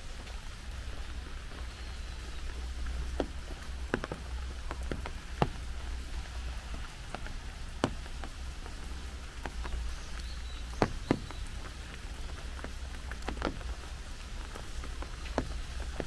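Steady rain falling, a fine hiss with scattered sharp ticks of single heavy drops striking close by, over a steady low rumble.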